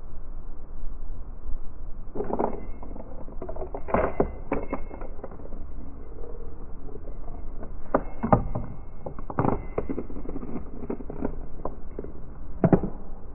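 A coin moving through a wooden maze coin bank with white plastic rails and levers, clattering against the parts in irregular clusters of clicks and knocks. A steady low background noise lies under it.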